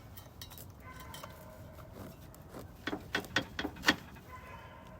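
Light metal clicks and clinks, a quick cluster of them in the second half, as a stuck fitting on the water heater's gas burner is worked at by hand.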